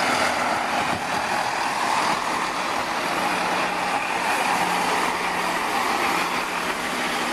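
Class 165 'Turbo' diesel multiple unit rolling slowly past as it arrives at the platform: diesel engine and wheel-on-rail noise, steady throughout. A steady low engine note comes in about three seconds in.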